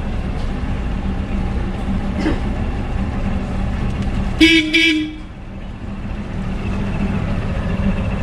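Houseboat engine running with a steady low hum, and about halfway through a horn sounds two short blasts in quick succession, arriving at the jetty.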